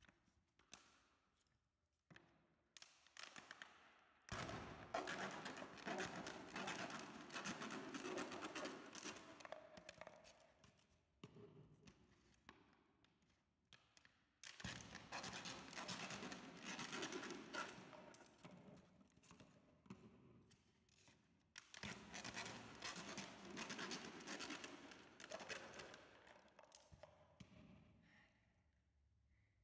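A knife sawing through the plastic of a water bottle, with rapid scraping strokes in three long spells and short pauses between.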